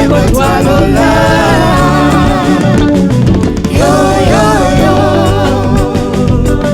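Band music: a voice singing long, wavering phrases, one starting about a second in and another about four seconds in, over the full band.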